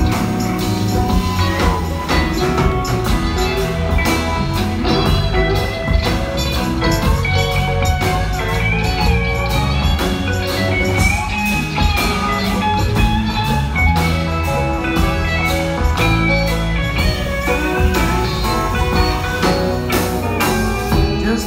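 Live country-rock band playing an instrumental break without vocals: electric guitars, pedal steel guitar, bass and drums, with a lead line weaving above the steady beat.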